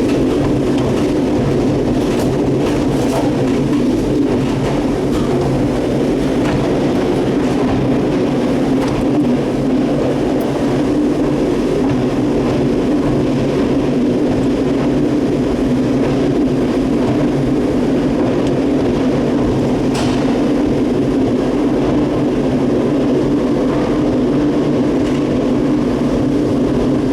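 Gateway Arch tram capsule running along its track, heard from inside the pod: a loud, steady mechanical rumble and hum with a few faint clicks.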